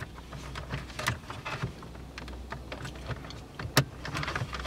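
Hard plastic clicking and knocking, with cables rustling, as a shifter USB/aux socket is pushed into a tight opening in a VW Jetta's centre console; one sharper click comes about three quarters of the way through, over a low steady hum.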